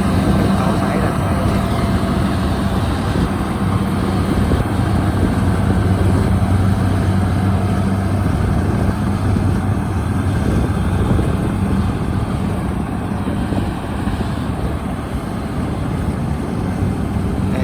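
Kubota DC-73 combine harvester's diesel engine running steadily under load, a constant low hum.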